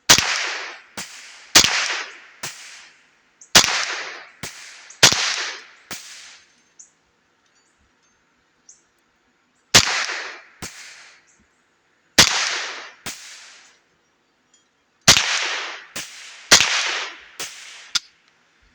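Ruger 10/22 semi-automatic .22 LR rifle firing a string of shots, mostly about a second apart, with a pause of a few seconds in the middle of the string.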